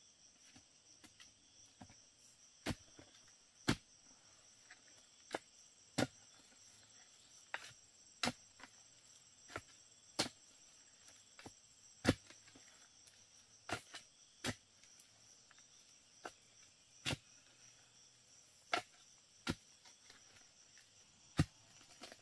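Crickets chirring steadily and high, with sharp single knocks or cracks every one to two seconds at an irregular pace.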